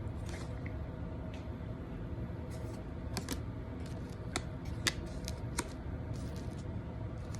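Scattered light clicks and taps of tarot cards being handled, about ten over several seconds, over a steady low hum.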